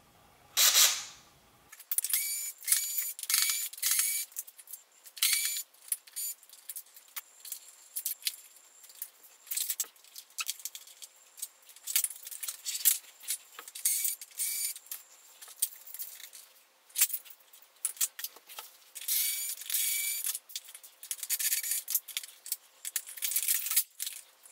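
Sped-up disassembly of a plastic upright vacuum cleaner: a dense, irregular run of quick clicks, clatters, rattles and squeaks from plastic parts, screws and tools. Denser spells come near the start and again late on, likely the cordless screwdriver at work.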